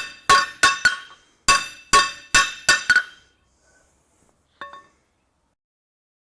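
A 3-pound hammer striking hot steel on an anvil, each blow ringing with a metallic tone: four quick blows, a short pause, then five more. About a second and a half later come two light taps. The hammering is shaping and squaring up an upset flare on the end of a square bar.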